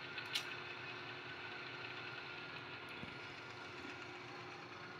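A steady faint mechanical hum with a hiss, and a light click about half a second in.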